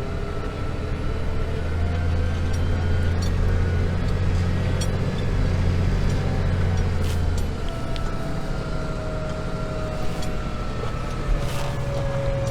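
Tractor engine running steadily under load while pulling a plough, with a faint whine above it; its deep note eases about seven and a half seconds in, and a few light clicks come through.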